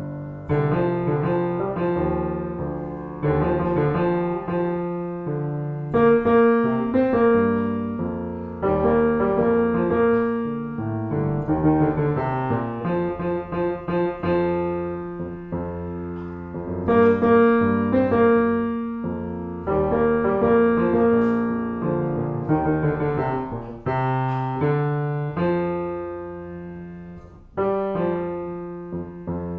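Solo piano playing slow chords with a melody line above a moving bass, each struck chord ringing out and fading before the next.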